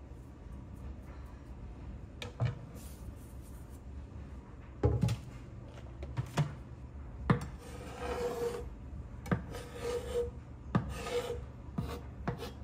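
A chef's knife and a metal baking sheet knocking and scraping on a wooden cutting board: sharp knocks every second or two, with a stretch of rough scraping in the second half.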